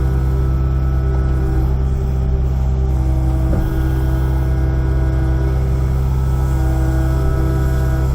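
Kubota mini excavator's diesel engine running steadily under work, with higher steady tones from the machine that shift about halfway through.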